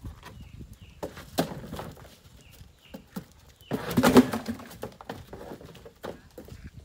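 Knocks and thuds of high-heeled footsteps and movement on a hollow wooden pallet stage, with a louder clatter about four seconds in. Small birds chirp faintly in the background.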